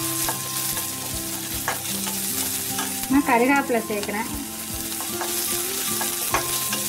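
Chopped onions and green chillies frying in oil in a stainless steel kadai with a steady sizzle, stirred with a wooden spatula that clicks and scrapes against the steel.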